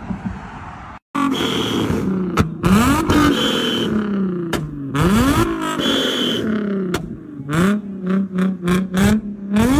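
A car engine revved hard while standing, its pitch rising and falling in repeated surges, with sharp exhaust pops and cracks as the exhaust shoots flames. Near the end it is blipped in quick, short revs, about two or three a second.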